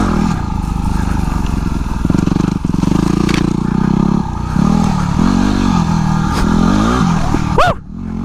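Dirt bike engine under hard riding, its pitch climbing and dropping again and again as the throttle is worked through gear changes. Near the end the engine sound drops away sharply for a moment.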